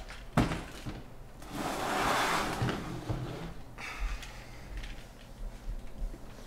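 A sharp knock, then about two seconds of rustling, sliding noise that swells and fades, followed by a few small handling noises.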